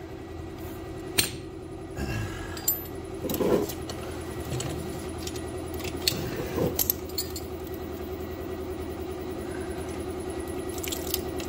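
A steady motor hum runs throughout, with scattered sharp metallic clinks and knocks as tools work at the engine's crank pulley.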